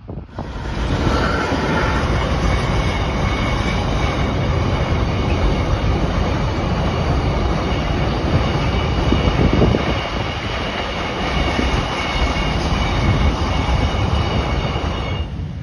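Container freight train wagons rolling past close by, the wheels rumbling and clattering on the rails. Steady high-pitched tones run above the rumble throughout.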